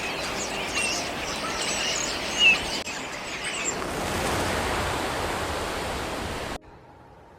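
Small birds chirping and calling over a steady rushing outdoor background noise, with one louder chirp about two and a half seconds in. The sound cuts off suddenly near the end, leaving only a faint low hum.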